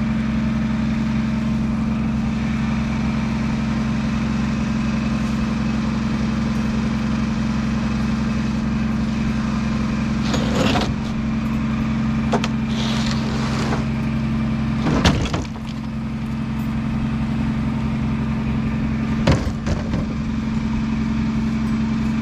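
An engine idling steadily, with a few short knocks and clanks about halfway through and near the end.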